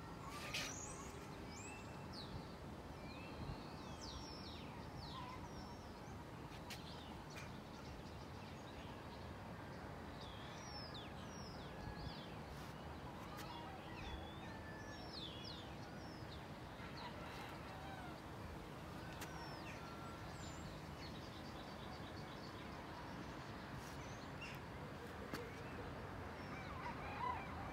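Birds chirping and calling, many short rising and falling notes scattered throughout, over a steady background hiss of outdoor ambience.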